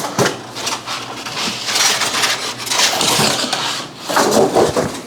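Rustling and scraping from parts being handled, with scattered light knocks.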